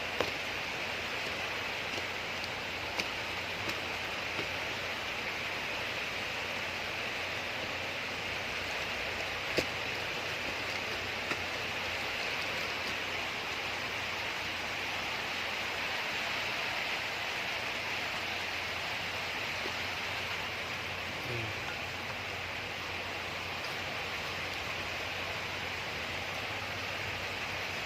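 Steady hiss of heavy typhoon rain, with a few faint clicks scattered through it.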